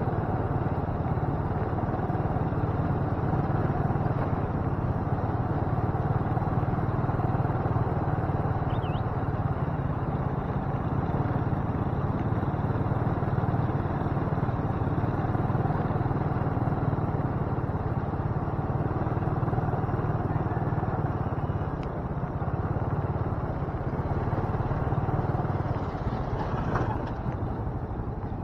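Motorcycle engine running at a steady cruise while riding, heard close up from the bike the camera is mounted on, with an even rush of road and wind noise.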